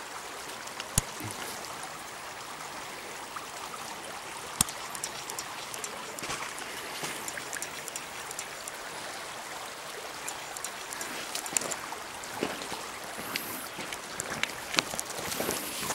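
Shallow gravel-bed creek flowing and trickling steadily over stones, with a few sharp clicks over it, the loudest about a second in and near the middle.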